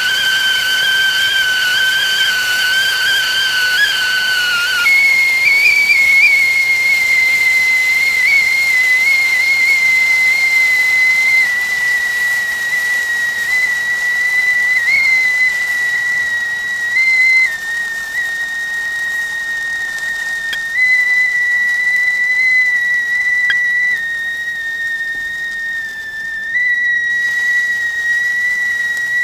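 Whistling teapot at the boil: a loud, sustained whistle over a hiss of steam. About five seconds in the pitch steps up a little, then holds steady with slight wavers.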